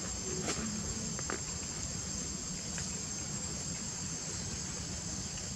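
Insects droning steadily at a high pitch, with a couple of faint clicks in the first second and a half.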